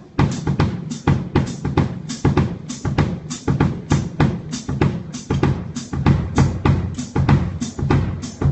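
Drum kit played in a steady beat during a band's sound check, with kick drum and snare hits coming several times a second.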